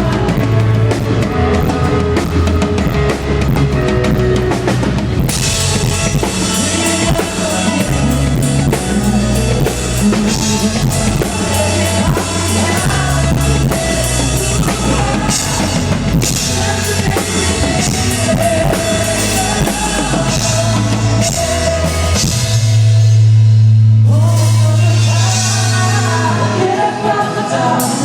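Live pop-rock band playing, with a drum kit and singing. Late on, a held low bass note stands out for a second or two.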